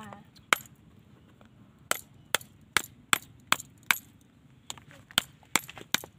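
A wooden stick knocking on the hard, woody shell of a wood apple to crack it: about ten sharp knocks, several in an even run of about two and a half a second.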